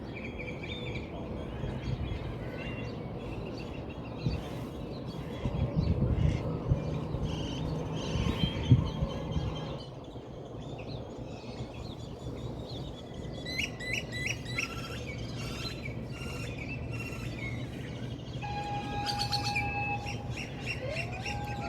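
Birds chirping and calling, with runs of short, quick, high chirps in the second half and a held whistle-like note near the end. A low rumbling noise runs under the first half and is loudest a little past the middle of it.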